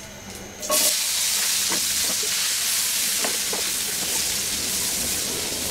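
Sliced onion and garlic hitting hot oil in a frying pan: a sudden loud sizzle starts just under a second in and goes on steadily, with a few light scrapes of a slotted spatula stirring them.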